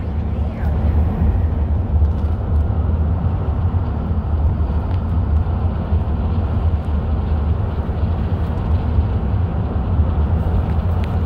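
Steady low rumble of a car driving, with engine and road noise heard from inside the cabin.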